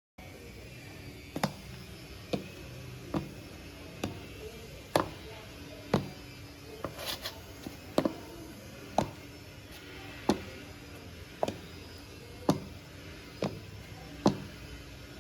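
A series of sharp knocks, about one a second, with a brief flurry of lighter taps about seven seconds in.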